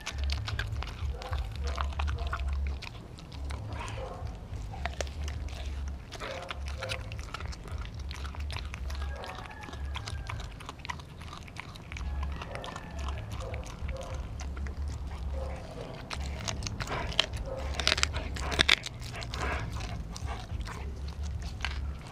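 Dog gnawing and biting on a raw turkey leg held in a hand: wet smacking with sharp clicks and crunches of teeth on meat and bone, which grow louder and denser near the end.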